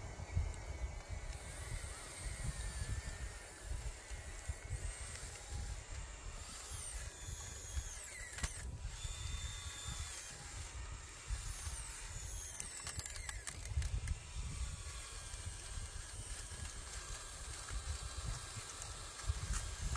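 Small electric gear motors of a radio-controlled toy excavator whining in short runs as the arm and thumb move, the pitch gliding up and down, over a steady low rumble.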